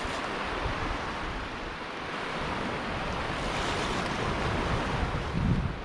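Surf washing ashore with wind buffeting the microphone: a steady rushing noise that swells a little midway, with a low thump near the end.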